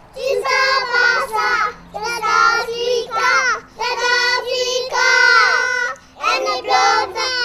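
Young children's high voices singing in short phrases, with brief breaks between them.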